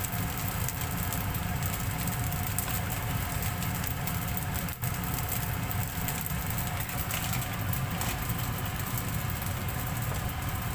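A steady low hum like a small motor or fan running, under an even hiss from rice frying in a non-stick pan, with a single brief click about five seconds in.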